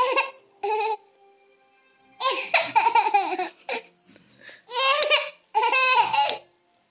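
A toddler laughing hard in about five bursts of high-pitched laughter, the longest in the middle.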